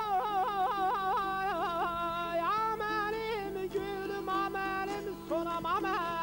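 Balaban, the Azerbaijani double-reed pipe, playing an ornamented folk melody full of quick trills and bends, with a saz sounding beneath it.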